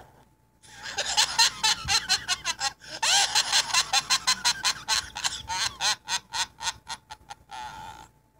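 A person laughing loudly in a long "bwahahaha", a rapid run of ha-ha pulses that starts about a second in and goes on for about seven seconds before stopping.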